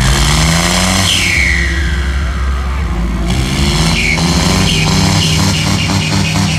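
Diesel tractor engines running hard under load, one belching black smoke, mixed with music playing and general crowd noise.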